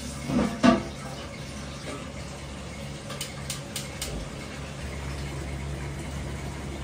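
Water running from a hose into a large aluminium stockpot as it is filled, with a brief knock about half a second in and a few light clicks a little later.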